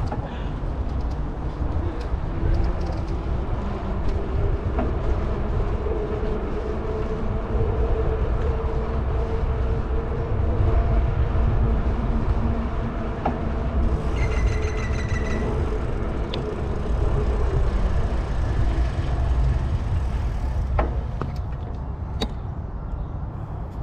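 Wind buffeting a GoPro's microphone with tyre noise from a moving bicycle: a steady, low rumble. A brief high-pitched tone about fourteen seconds in.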